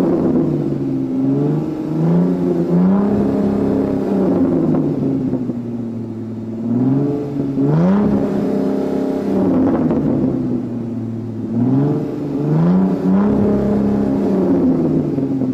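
A supercar engine being revved while stationary. It blips up from a steady idle and falls back several times, each rev a quick rising then falling howl of engine pitch.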